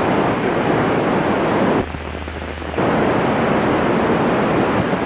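FM radio receiver on 145.000 MHz giving a steady rushing static hiss between transmissions, with no voice coming through. About two seconds in, the hiss drops for about a second and a low steady hum sits under it, then the full hiss returns.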